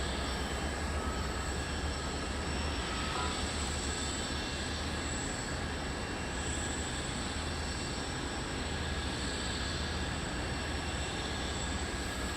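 Jet aircraft engines running steadily: a low rumble with a thin, high steady whine over it.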